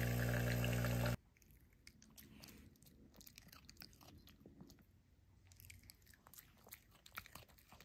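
De'Longhi Magnifica S espresso machine's pump humming steadily as espresso pours, cut off sharply about a second in. Then a Chihuahua chewing a small hand-fed treat: faint, irregular crunching clicks.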